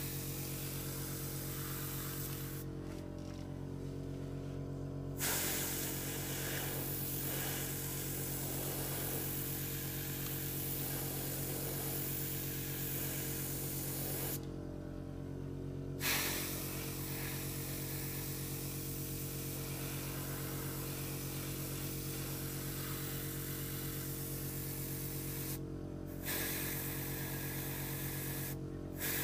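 Gravity-feed airbrush spraying paint with a steady hiss, cut off four times as the trigger is let go (a couple of seconds each early on and mid-way, briefly twice near the end). Under it the air compressor hums steadily without a break.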